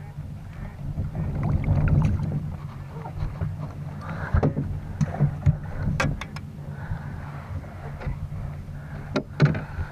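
Steady low rumble of a small fishing boat on the water, with several sharp knocks and clicks as a white perch is landed and handled in the boat, the loudest near the end.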